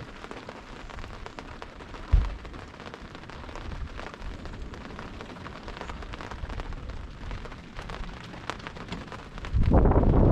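Rain falling on the boat and the sea, a steady patter of fine drop ticks, with one short low thump about two seconds in. Near the end, wind buffeting the microphone starts suddenly and loudly.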